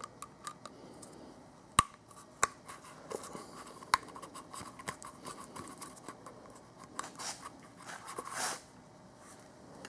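Pliers squeezing a spring-band hose clamp on a rubber coolant hose: a few sharp metal clicks, then rubbing and scraping near the end as the clamp is worked along the hose.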